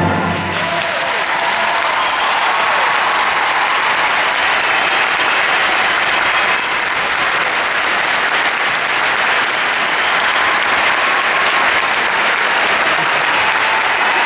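Loud, steady applause from a large concert-hall audience, starting just as the final chord of a choir and orchestra breaks off in the first moment.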